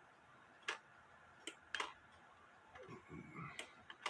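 Sharp mechanical clock ticks, five of them, unevenly spaced, with a soft rustle of handling about three seconds in.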